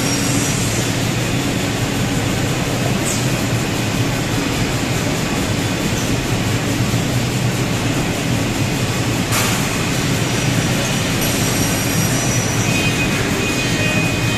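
Holztek Tectra-328F CNC panel saw running, its saw carriage cutting through a stack of plywood boards clamped under the pressure beam: a loud, steady noise, with a sharp click about three seconds in and another about nine seconds in.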